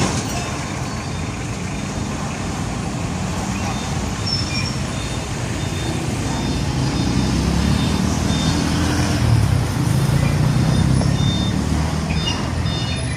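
Heavy diesel truck passing along a busy road over steady traffic noise; its low engine rumble builds through the middle, is loudest a little past the halfway point, then eases off near the end.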